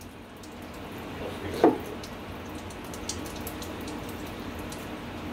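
Steady hiss of termiticide solution being pumped through a brass injector lance into a wall, with one brief louder sound about a second and a half in.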